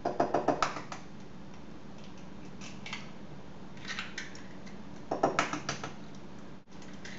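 Eggs rapped against the rim of a white ceramic bowl and their shells cracked open, heard as short runs of quick, light clicks: one near the start, a few more about four seconds in, and another run about five seconds in.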